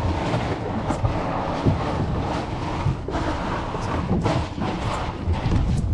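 Wind buffeting the camera's microphone in continuous low rumbles, with knocks and scrapes from the camera being handled.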